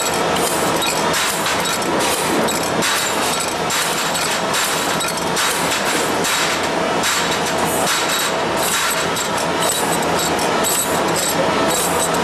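Tube recut machine running, shearing short lengths off stainless steel tube at high speed: a continuous run of rapid metallic clicks and knocks over a steady machine noise.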